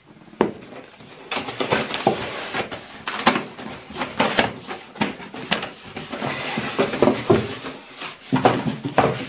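Cardboard drone box being handled and its tight-fitting lid worked off: a run of cardboard scrapes and rubs with many small knocks and taps.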